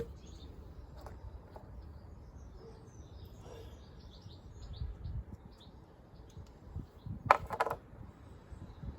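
Birds chirping faintly in the background, with a brief loud clatter of clicks about seven seconds in.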